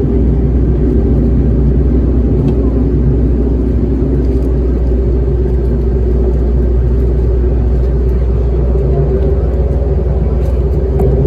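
Airport apron shuttle bus running with a steady low rumble.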